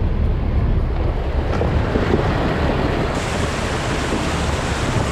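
River water rushing and splashing around the wheels of a four-wheel-drive ute as it fords a shallow river, with wind buffeting the microphone. The hiss grows brighter about three seconds in.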